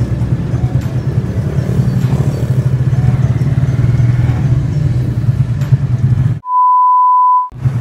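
A motorcycle tricycle's engine drones steadily from inside its sidecar. About six and a half seconds in, all sound cuts out and a single steady beep tone, an edited-in bleep, sounds alone for about a second before the engine noise returns.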